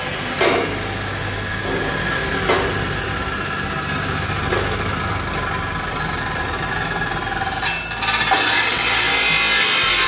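Abrasive chop saw running with its cut-off disc spinning, then grinding into a bent sheet-iron door-frame profile from about eight seconds in, where the sound gets louder.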